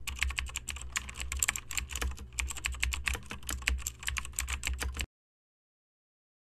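Keyboard typing sound effect: rapid, irregular key clicks over a low hum for about five seconds, then cut off abruptly.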